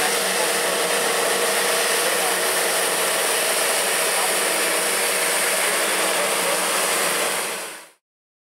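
Holder C27C compact tractor running with its front rotary sweeper broom spinning, the bristles scrubbing slush off pavement: a steady mechanical whir over a rushing brushing noise. It fades out quickly near the end.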